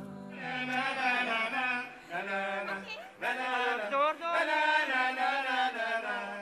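Men's voices singing together unaccompanied into microphones, with no backing beat, pausing briefly about two and three seconds in.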